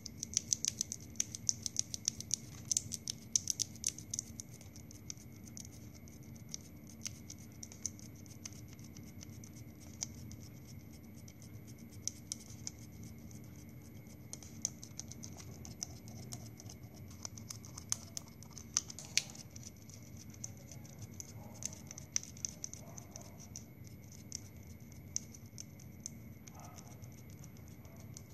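Scissors snipping a plastic drinking straw lengthwise into thin strips, with rapid small clicking cuts that come thick and fast for the first few seconds and then more sparsely.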